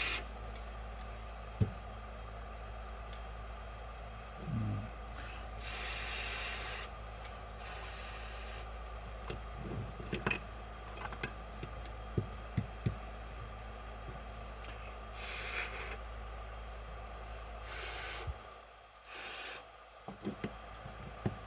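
Short bursts of forced air hissing over a freshly reflowed circuit board to cool a soldered regulator, the longest lasting about a second. A steady low hum stops about eighteen seconds in, and small clicks and taps come here and there.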